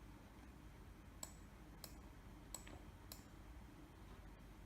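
Computer mouse buttons clicking: four sharp, short clicks about two-thirds of a second apart, with a faint steady hum between them.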